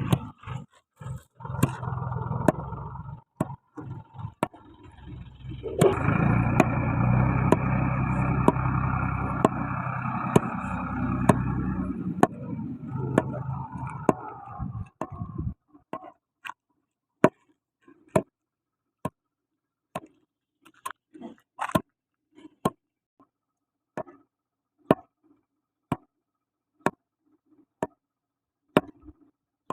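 An engine running for about the first fifteen seconds, louder from about six seconds in, then stopping. After it, a steady series of sharp knocks, about one a second.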